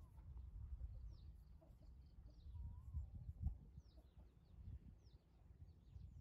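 Faint bird chirps, a handful of short calls scattered through, with one wavering call about two and a half seconds in. Underneath is a low rumble.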